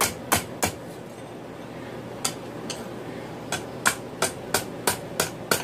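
Blacksmith's hammer striking hot 5/16-inch round steel stock on an anvil with glancing blows, rolling the tip into a scroll. Three quick blows, a pause of about a second and a half broken by one lone blow, then a steady run of about three blows a second.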